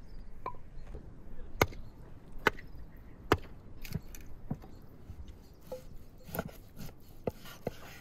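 Chopping on wood: hatchet blows on firewood and a knife chopping lamb on a wooden cutting board, about a dozen sharp knocks. The three loudest come a little under a second apart in the first half; the rest are lighter.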